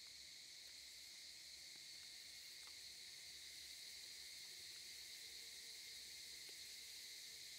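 Faint insect chorus: a steady, even high-pitched buzz.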